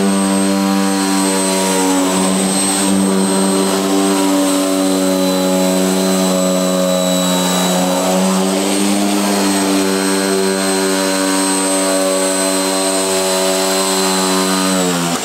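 Corded electric sheet-metal shears (electric tin snips) cutting through a school bus's steel interior wall panel: a steady motor hum with a thin high whine, its blade chopping rapidly up and down. The motor winds down near the end as the trigger is released.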